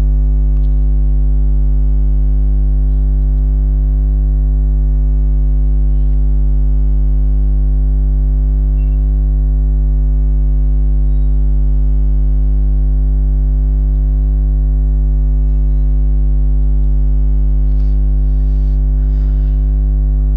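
Loud, steady electrical hum: a low mains buzz with a ladder of evenly spaced overtones, unchanging throughout.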